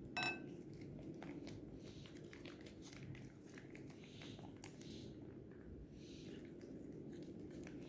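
Faint clinks and light scraping of a utensil against a bowl as glue is put into it, with one sharp ringing clink near the start.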